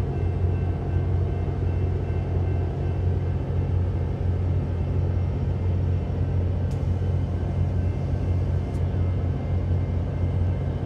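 Diesel locomotive idling close by: a steady low rumbling hum with faint steady whining tones above it, unchanging throughout.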